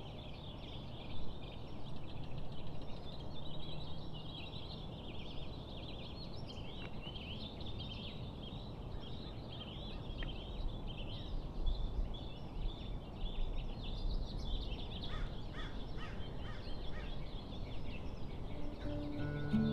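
Many birds chirping and twittering at once, a busy chorus of short calls, over a low background rumble of outdoor ambience.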